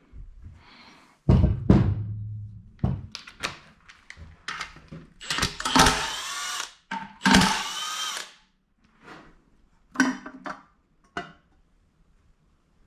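A cordless power driver spinning bolts out of a Toyota 1JZ engine in several short runs, its pitch rising and falling, with metal clicks and clinks between the runs.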